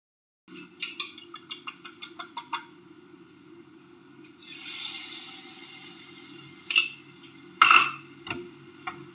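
A fork clicking rapidly against a ceramic bowl as eggs are beaten, about six strokes a second. Then the beaten egg sizzles as it is poured into a hot nonstick frying pan, followed by two sharp clinks against the pan. A steady low hum runs underneath.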